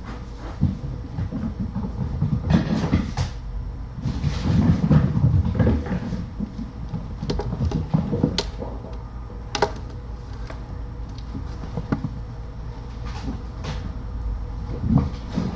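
Irregular knocks, bumps and clicks from objects being handled or moved in a small room, over a low steady hum.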